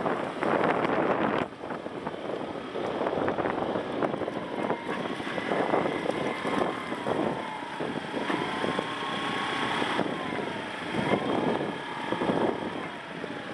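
Motorbike engine running at low speed, with wind noise on the microphone. The sound is roughest for the first second or so, and the engine's pitch wavers up and down through the middle.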